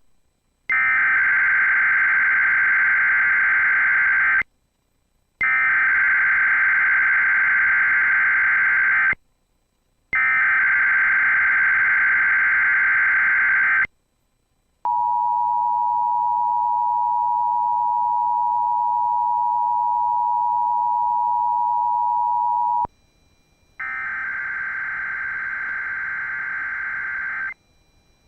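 Emergency Alert System tones: three bursts of SAME digital header data, each about four seconds long with short gaps between them, then the two-tone attention signal (853 and 960 Hz sounding together) held steady for about eight seconds. Near the end a quieter data burst starts the next alert.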